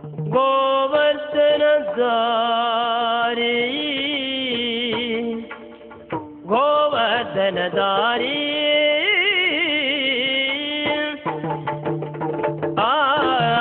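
Yakshagana music: a sung melody held in long, wavering notes over drum strokes, with a short break in the singing about six seconds in.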